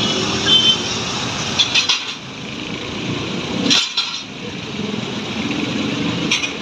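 Sharp metal clanks of a tow truck's steel wheel-lift arms and wheel cradles being handled and set down on the asphalt, four or so, over the steady running of engines.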